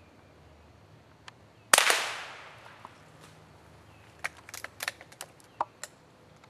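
A single rifle shot about two seconds in, its report ringing away over about a second. A run of sharp clicks and knocks follows a couple of seconds later.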